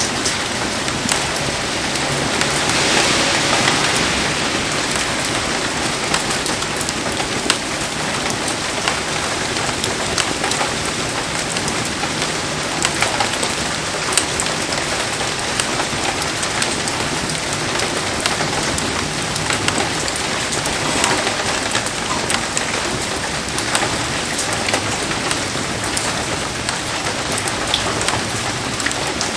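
Heavy rain falling steadily, a dense hiss broken by many sharp ticks of drops, swelling louder for a couple of seconds about three seconds in.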